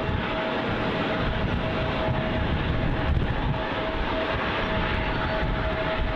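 Jet airliner engines running: a steady rushing noise with a steady whine held through it.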